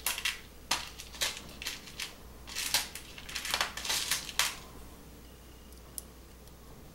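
A run of light clicks and scrapes as a diecast model car's metal baseplate is handled and fiddled with in the fingers, stopping about four and a half seconds in.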